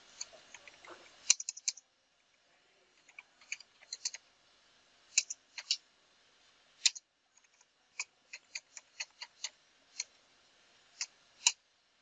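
Computer keyboard being typed on slowly and unevenly: single key clicks and short runs, with pauses of a second or so between them.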